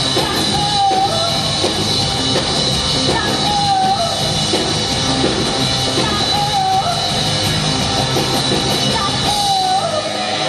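Loud rock music with a singing voice: runway soundtrack with a melody line that repeats about every second and a half.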